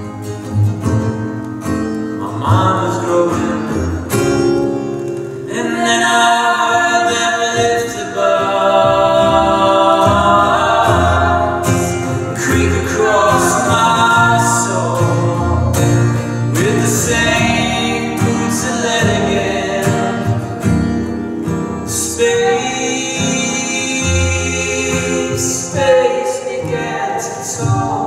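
Live acoustic music: an acoustic guitar and a plucked upright bass play under a man and a woman singing together. The playing is quieter for the first few seconds, and the voices come in fully about six seconds in.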